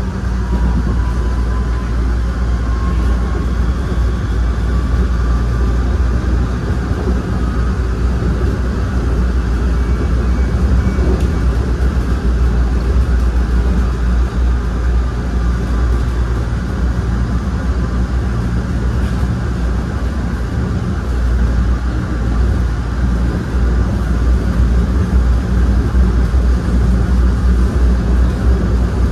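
An ABB N5 rail car running on its line: a steady low rumble of the car in motion, with a whine rising in pitch over the first several seconds.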